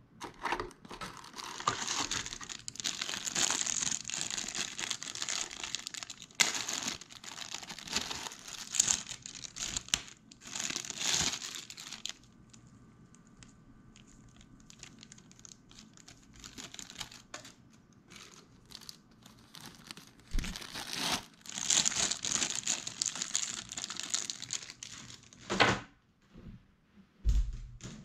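Clear plastic packaging bag crinkling and rustling as it is handled and pulled off a USB cable. The crinkling comes in two long spells, with a quieter stretch of light clicks and handling between them.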